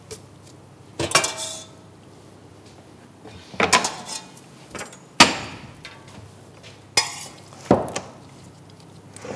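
Metal tongs clanking against a stainless steel pot while lifting out cooked pasta: about five sharp metallic knocks at irregular intervals, each with a short ring.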